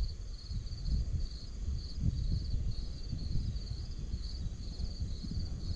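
Insects chirping in a steady, pulsing high trill, over a low, gusty rumble of wind on the microphone.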